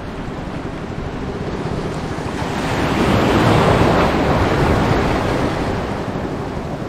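A rush of wind and water noise that swells to a peak about three to four seconds in, then eases off.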